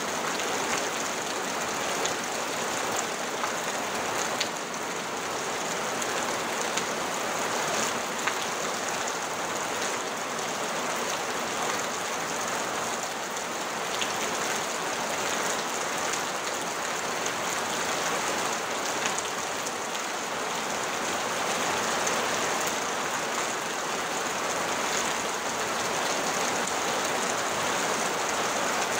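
Rain falling on a corrugated tin roof: a steady, dense patter of drops on the metal sheets.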